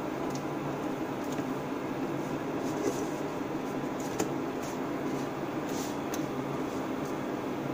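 Steady fan hum, with a few faint clicks and a sharper tap about four seconds in as a flour tortilla is flipped with a silicone spatula in a non-stick pan.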